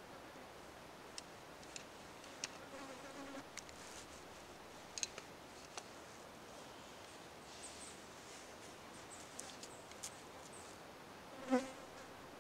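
Flies buzzing briefly past close by, a short buzz about two and a half seconds in and a louder one near the end, among faint scattered ticks.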